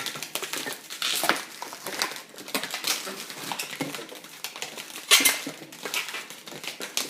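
Latex twisting balloons squeaking and rubbing against each other as they are handled and twisted, in an irregular run of short squeaks and scrapes, loudest about a second in and again around five seconds in.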